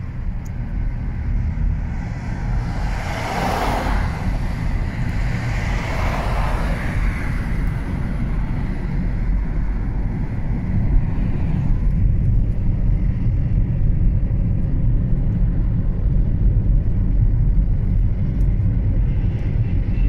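Steady low rumble of a moving car, road and engine noise, with a louder rush of noise between about three and seven seconds in.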